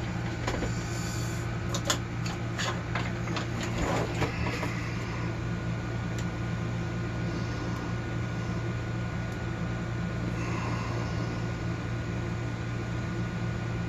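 A few light clicks and taps of a screwdriver and small metal padlock parts being handled in the first few seconds, then a steady low hum with only faint handling noise.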